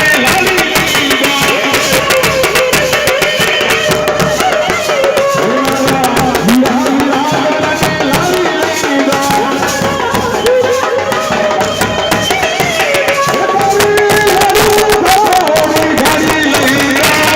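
Gujarati-style Indian band music: a wavering, sliding melody over dense, fast drumming.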